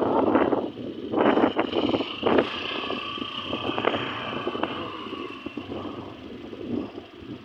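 Wind buffeting the microphone on a moving motorbike, with the engine and road noise running underneath; the buffeting is loudest in the first couple of seconds, surges again in gusts, then eases toward the end.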